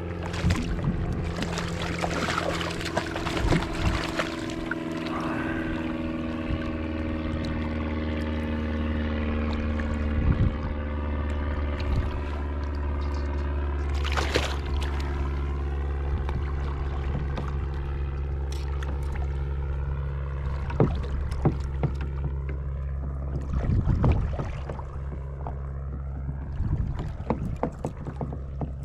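A boat motor running steadily with a low hum and slowly drifting higher tones, with scattered sharp knocks.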